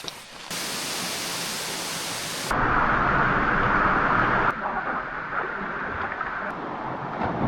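Waterfall water rushing: a steady, even roar of noise that changes abruptly in loudness and tone three times and is loudest in the middle stretch.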